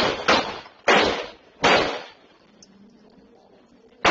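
Gunshots heard through a doorbell camera's microphone: four sharp shots in the first two seconds, spaced further apart each time, then a pause of about two seconds before another rapid volley starts at the very end.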